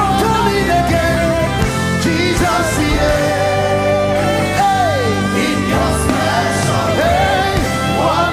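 Live gospel worship band playing, with a singer's voice over held keyboard chords, bass and guitar. About halfway through, a sung note slides down, and cymbals splash near the end.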